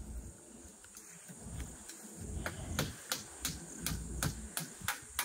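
Footsteps through grass, about three steps a second from about halfway in, over a steady high drone of insects.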